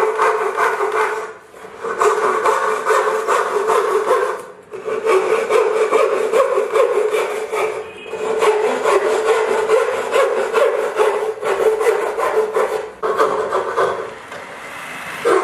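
A hand tool working wood in rapid back-and-forth scraping strokes, in runs of a few seconds broken by short pauses.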